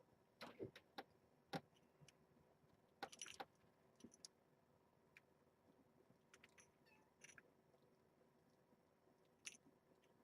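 Near silence: quiet room tone with faint, scattered clicks and rustles, the loudest about half a second, one and a half seconds and three seconds in.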